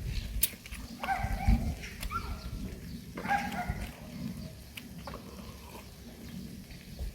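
A cat meowing twice, about a second in and again about three seconds in, with scattered light clicks around it.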